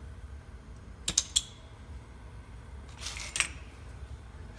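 Soldering torch being lit: three sharp clicks about a second in, then a short hiss with a click about three seconds in, after which its small blue flame is burning.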